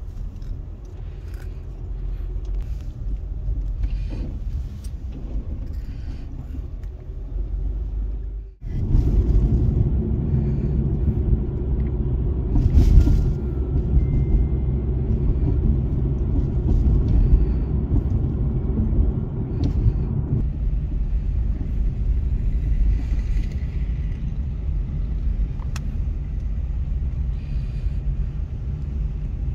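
Steady low rumble of a car's engine and tyres heard inside the cabin while driving. It cuts out briefly about eight and a half seconds in, then comes back louder.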